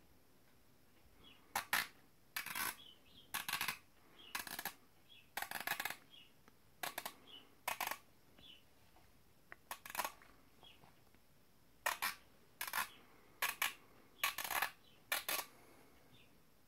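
Schmidt & Bender 5-25x56 PMII riflescope turrets turned by hand: about fifteen short bursts of rapid clicking and rubbing, coming irregularly.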